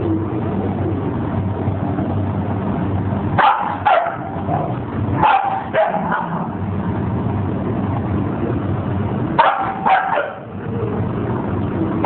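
A dog barking in short yips, in three bursts of two or three calls a few seconds apart, over a steady low hum.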